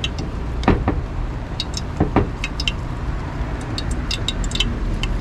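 Boiled pork belly frying in hot oil, sizzling steadily with scattered crackling pops of spattering oil, and a few sharp knocks about one and two seconds in.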